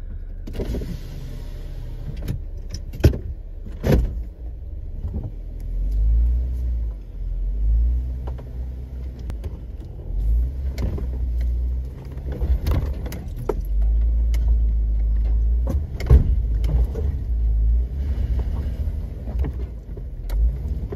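Off-road vehicle's engine rumbling in low gear as it crawls over rock ledges, swelling several times as it is given throttle to climb. A few sharp knocks and clunks cut through, the loudest near the start and again about two-thirds through.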